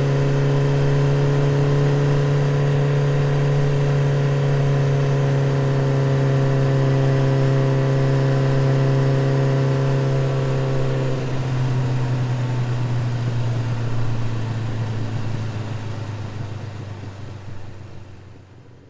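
Motorcycle engine running at a steady speed. About eleven seconds in its note drops a little, and over the last few seconds the sound fades out.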